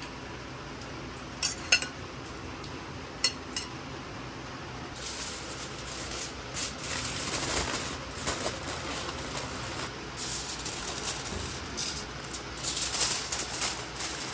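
Aluminium foil being folded and crimped shut around a roast by hand. A few light clicks in the first few seconds, then crackling crinkles from about five seconds in that come in waves, loudest near the end.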